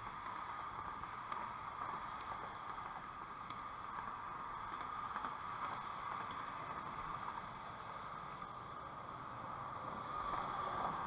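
Motorboat engine running steadily as the boat passes below, slightly louder near the end.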